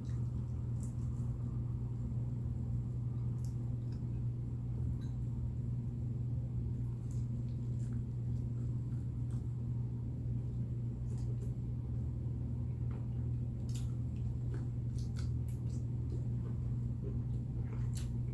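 Chewing and mouth smacks from eating chicken wings: faint scattered wet clicks over a steady low electrical hum.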